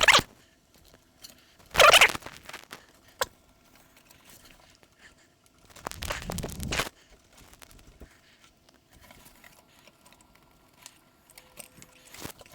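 Hands handling small computer parts: short bursts of rustling a few seconds apart and a sharp click about three seconds in.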